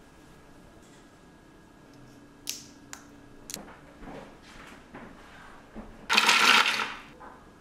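Prep sounds at a mini food processor: a few sharp plastic clicks and knocks, then a loud rattling rush under a second long as pistachios are tipped into its plastic bowl.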